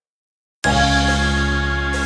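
Silence, then background music starts abruptly a little over half a second in, with sustained chords over a steady bass.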